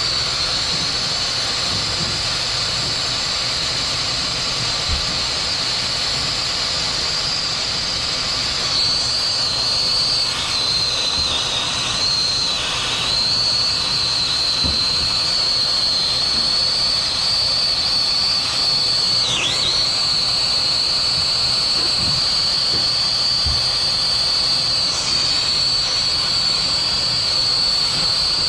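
Brazing torch flame hissing steadily as it heats a copper refrigerant line joint, with a steady high whistle over it that dips briefly a few times.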